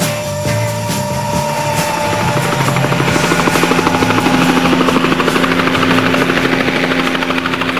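A Bell UH-1 Huey helicopter's rotor chop, a rapid steady beating over a steady turbine hum, swelling in from about two seconds in, loudest around the middle and easing slightly near the end. Background music fades out in the first two seconds.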